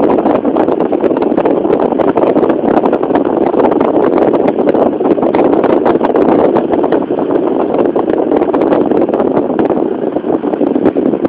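Loud, steady wind and road rumble from inside a moving car, with wind buffeting and crackling on the microphone.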